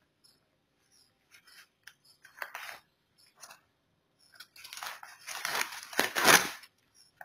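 Bubble wrap and packing tape on a parcel being cut and torn open, with plastic crinkling. Short snips and rustles at first, a sharper tear about two and a half seconds in, then a longer, louder stretch of tearing and crinkling from about halfway through, loudest near the end.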